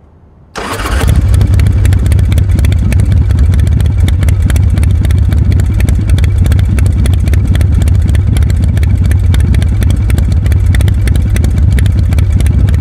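Motorcycle engine running at a steady idle, a deep rumble with a fast even beat of firing pulses, starting about half a second in.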